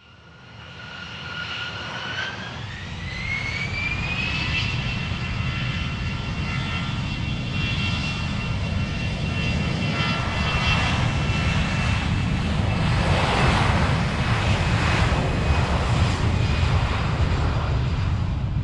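Airplane engines powering up for takeoff: a high whine rises over the first few seconds and then holds steady, over a low rumble that grows louder and stays loud throughout.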